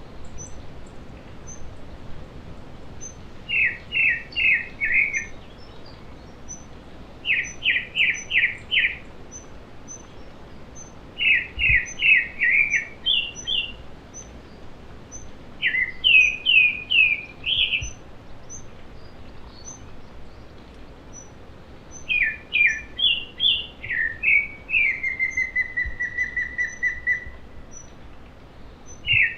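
Wild mountain songbirds singing: one bird repeats phrases of four or five quick notes every few seconds, while faint high single peeps come from another about once a second. Late on, one gives a short even trill.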